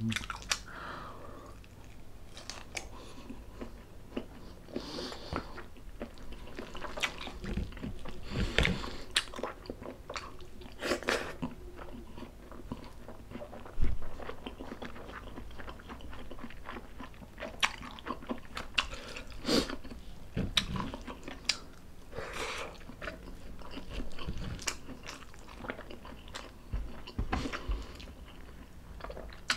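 A person chewing and biting stuffed squid adobo: irregular wet mouth sounds and short sharp bite clicks, with a louder click about 14 seconds in.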